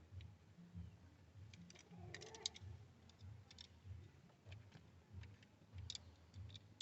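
Near silence with faint, scattered small clicks of wires and tools being handled during stereo wiring, over a faint low thudding about twice a second.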